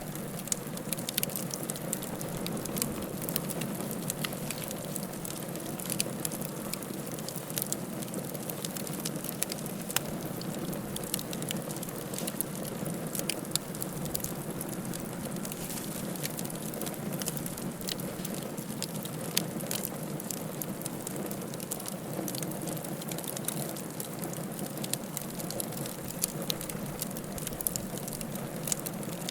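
Wood fire crackling in a fireplace: a steady low rush of burning with many small sharp pops and crackles at irregular intervals.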